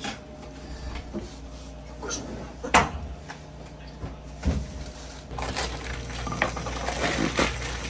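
Kitchen work sounds: dishes and utensils knocking and clattering, with one sharp knock a little under three seconds in. A steady hiss comes in about five seconds in.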